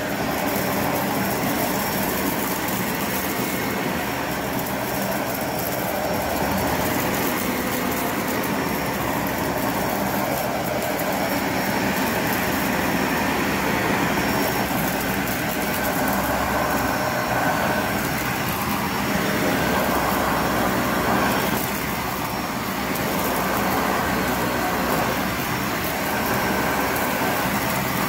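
Dyson ball upright vacuum cleaner running on plush carpet: a steady motor whine over suction and brush-bar noise, swelling and easing a little every few seconds as the head is pushed back and forth.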